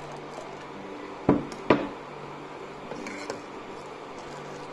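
Two sharp knocks of a metal ladle against a steel pot of milky pink tea, about a second and a half in, over a faint steady hum.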